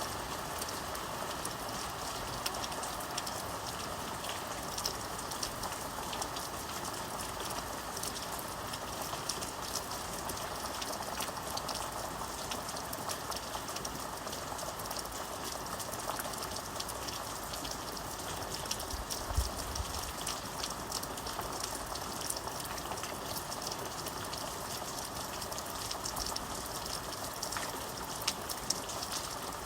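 Steady rain falling, with many small drop ticks scattered through the hiss. A single short low thump comes a little past two-thirds of the way through.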